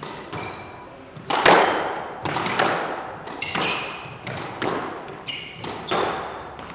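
Squash rally: the ball smacks off rackets and the court walls roughly once a second, each hit echoing in the court, the loudest about a second and a half in. Short high squeaks of court shoes on the wooden floor come between the hits.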